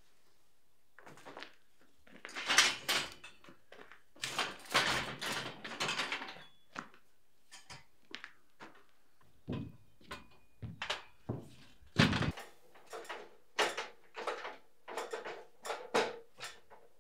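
Metal scaffold frame being folded and handled: a run of irregular clanks, knocks and rattles of steel parts, with a brief faint metallic ring about ten seconds in.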